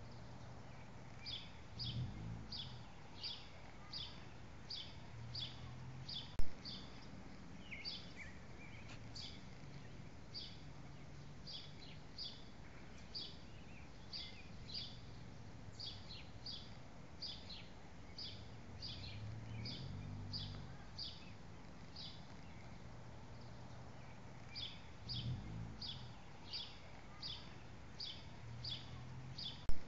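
Outdoor ambience: a bird chirping over and over, about two short high chirps a second, over a faint low rumble that swells a few times. A single sharp click about six seconds in.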